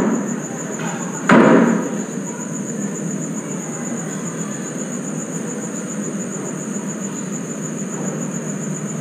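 Insects, crickets or katydids, trilling steadily and high over a constant hiss, broken about a second in by one loud sudden knock.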